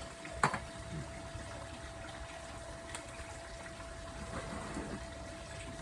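One sharp click about half a second in, with a few faint handling noises after it, as bonsai wire and tools are handled. Underneath runs a steady hum with a low rumble.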